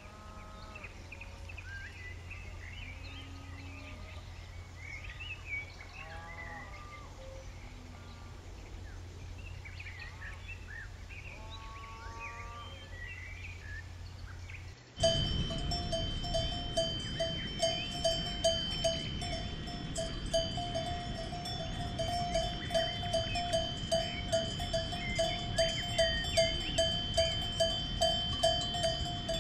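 Birds chirping faintly over a low steady hum, with a few short animal calls. About halfway through, a cow's bell starts ringing in a steady clanking rhythm, about two strokes a second, as the cow grazes; this is the loudest sound.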